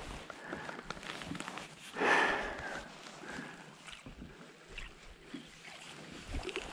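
Jacket fabric rustling and a lifejacket zipper clicking against a chest-mounted action-camera microphone as the wearer moves in an aluminium boat. There is a louder rustle about two seconds in, and scattered sharp clicks, a few of them close together near the end.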